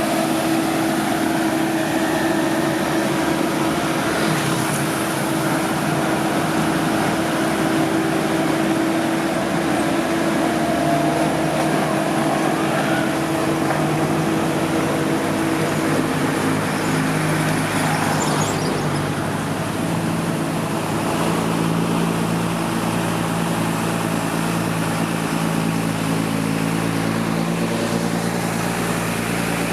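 Heavy construction vehicles' diesel engines running steadily, with several engine tones held together. About two-thirds of the way through, the engine note changes to a lower pitch.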